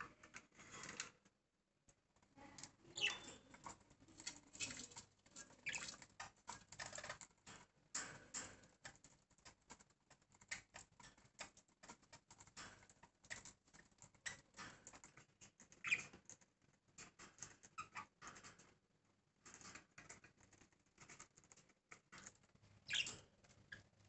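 Caged budgerigar and zebra finch: faint scratchy clicking and tapping of small birds moving about the cage, with a few short, high, falling chirps scattered through.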